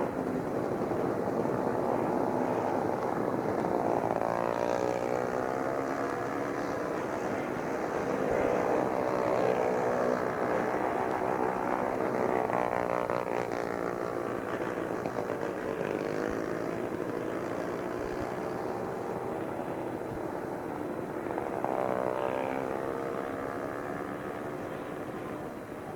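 A recorded engine sound effect whose pitch swings up and down every few seconds, fading out near the end.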